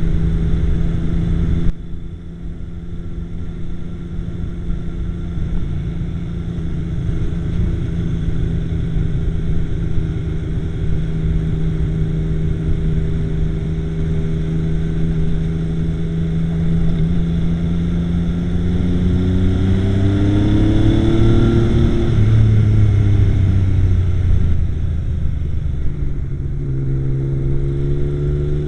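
Yamaha XS850 three-cylinder motorcycle engine running at a steady speed. Its pitch then climbs over a few seconds, drops back sharply about 22 s in, and settles into a steady note again. The owner says this bike runs fine at idle but sometimes misfires while riding.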